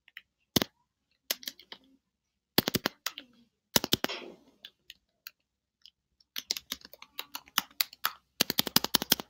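Typing on a computer keyboard in short bursts of key clicks with pauses between them, ending in a fast, dense run of keystrokes.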